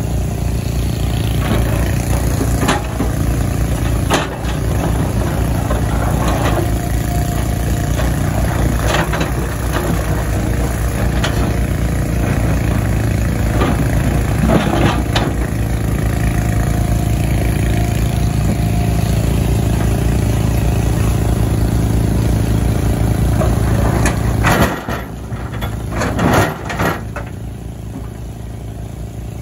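Tata Hitachi Zaxis 120H excavator's diesel engine running steadily under hydraulic load as it digs and loads rock, with scattered knocks and clatter of stone. About 25 seconds in the engine note drops and a few sharp knocks follow.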